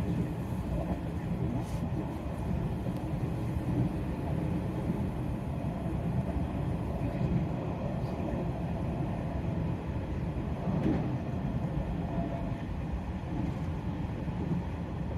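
Nishitetsu electric train running at speed, heard from inside: a steady low rumble of the wheels on the rails and the car in motion.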